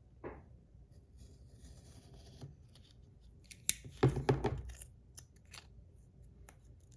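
Adhesive tape being cut and torn, with small scratchy handling sounds. A short squeak comes near the start, and a quick cluster of sharp snips and clicks about four seconds in is the loudest part.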